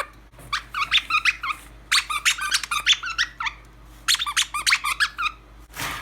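Blue Quaker parrot (monk parakeet) chattering in three quick bursts of rapid squeaky calls, with short pauses between them.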